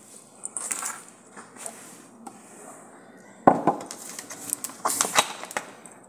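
Kitchen items handled on a counter: rustling, then one sharp knock about three and a half seconds in as something is set down, followed by a few lighter clinks and clicks around a glass jug and a plastic juice bottle.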